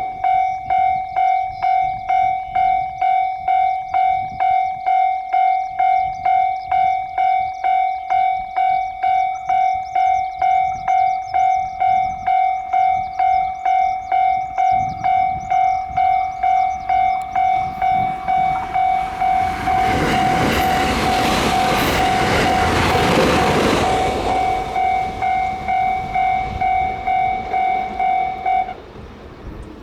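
Japanese railway level-crossing warning bell ringing steadily at about two strokes a second while a train passes over the crossing, its wheel noise swelling and fading for several seconds about two thirds of the way through. The bell stops abruptly near the end as the crossing clears.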